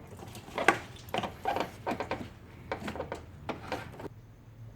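Irregular light plastic clicks and knocks from the upper radiator hose's retaining clip being handled and pushed back into the hose connector. The sharpest click comes a little under a second in, and the clicking stops about four seconds in.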